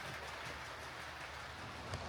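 Hornby Class 4P OO gauge model locomotive running along the track: a steady whirr from its motor and gears with light wheel noise.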